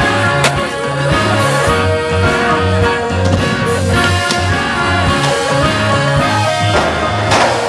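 Background music with a steady bass line and regular drum hits.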